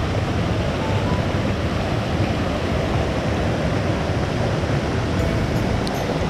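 Steady rush of water pouring over small waterfalls and a weir into a fast river, a constant even roar.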